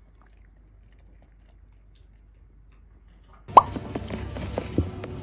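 Quiet room tone for about three and a half seconds, then supermarket ambience cuts in suddenly: a steady hum and background noise, opening with a sharp loud click and a few smaller knocks.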